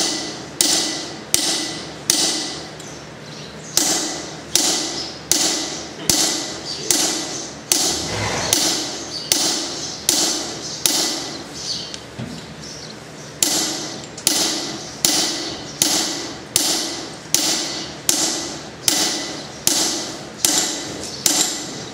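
Hand hammer striking a handled fuller held on a horseshoe on the anvil, driving the nail crease into the shoe. Steady, even blows about one and a half a second, each with a short metallic ring, with a brief pause a little past halfway.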